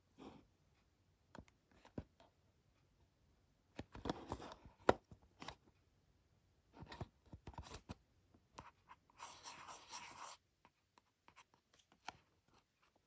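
Small cardboard box and plastic packaging being handled and opened: scattered light clicks and rustles, with a crinkling tear lasting about a second and a half about two-thirds of the way in.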